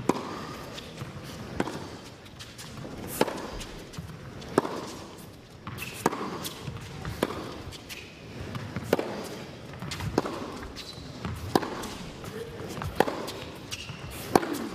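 Tennis rally: a ball struck back and forth by rackets, about ten sharp strikes spaced roughly a second and a half apart, with softer bounces of the ball on the court between them.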